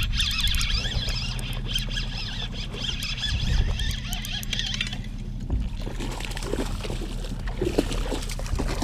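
A boat engine idling with a steady low hum. A high wavering chirping sits over it for the first five seconds or so, then fades.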